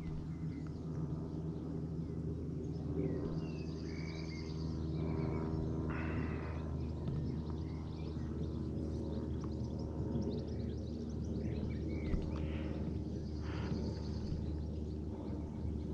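Outdoor pond-side ambience: a steady low hum with scattered bird chirps over it, and two short high trills, one about four seconds in and one near the end.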